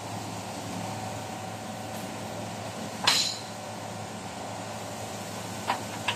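Steady shop hum with one sharp metal clank about three seconds in and two lighter clicks near the end, from metal parts and tools being handled at a welding bench.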